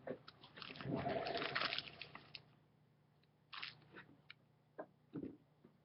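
Plastic packaging crinkling as small plastic Lego pieces are handled, for about two and a half seconds, then a few scattered faint taps and rustles.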